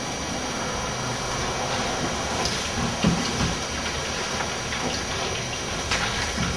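Steady hiss of room and recording noise, with a few soft knocks and taps, the clearest about three seconds in and again near the end.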